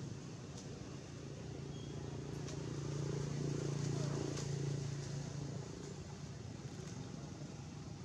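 A motor vehicle passing at a distance, its low engine hum swelling to a peak about halfway through and then fading, with a few faint clicks over it.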